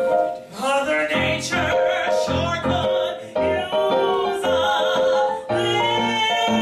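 A woman sings a cabaret song with vibrato, accompanied by piano, in phrases with short breaks between them.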